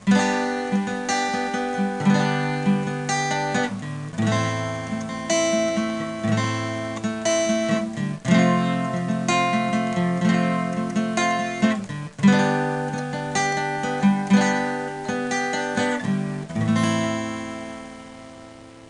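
Acoustic guitar instrumental, strummed and picked chords changing every second or two, fading out near the end.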